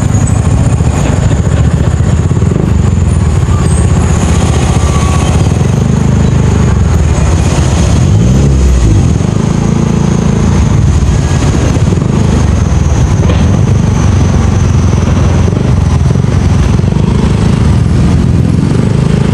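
Motorcycle engine running while riding, a loud low rumble that goes on without a break, its pitch dipping and then rising again about eight to nine seconds in as the rider eases off and speeds up.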